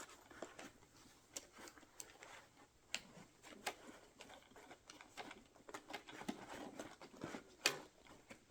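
Hand tools being set into a fabric tool bag: scattered light clicks and knocks with soft rustling, the sharpest click near the end.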